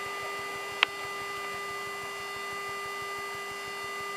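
Steady cabin hum of a Boeing 737-800 airliner with its doors closed, holding several constant tones over a faint hiss. A single sharp click comes a little under a second in.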